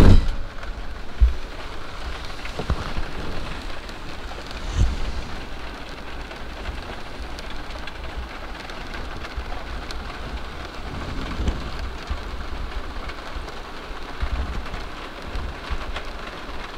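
Steady rain on a campervan's roof, heard from inside, with a few dull low thumps.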